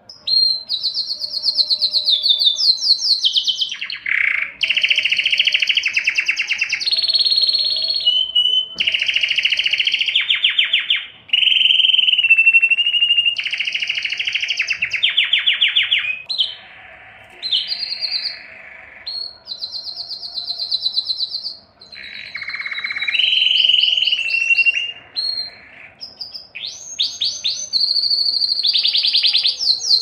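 Domestic canary singing a long, loud song of rapid trills, switching to a new phrase at a different pitch every second or two, with only a few short breaks.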